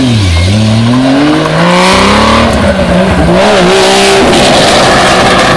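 Historic rally car's engine at full stage pace, loud: the pitch drops sharply as it comes off the throttle early on, then climbs again in steps through gear changes, turning into a rough, raspy engine sound about four seconds in.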